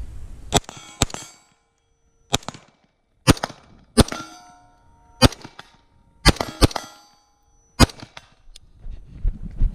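LMT RA20 rifle firing Tula steel-cased ammunition, about nine single shots at an irregular pace, several followed by a clear metallic ringing.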